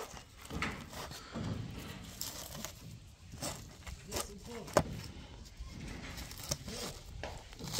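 Irregular sharp clicks and knocks, about a dozen, the loudest about five seconds in, with softer low sounds between them.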